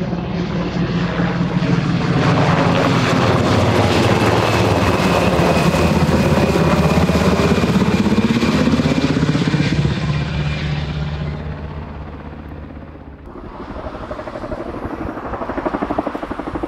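A grey navy Seahawk helicopter (H-60 type) passing close: loud rotor beat with a thin high turbine whine, its low drone bending in pitch as it goes by, then fading. About thirteen seconds in, the sound cuts to a Boeing CH-47 Chinook tandem-rotor helicopter in flight, its pulsing rotor noise building.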